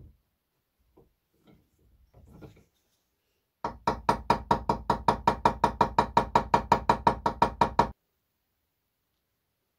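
A small hammer tapping fast on a small metal piece held on a steel bench vise, about six even strikes a second. Each strike has a short metallic ring. The tapping starts a little over a third of the way in and stops abruptly about four seconds later, after a few faint handling clicks.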